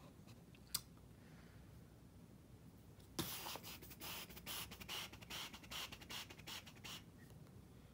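A single sharp click under a second in, then about four seconds of faint, irregular scratching and rustling close to the microphone.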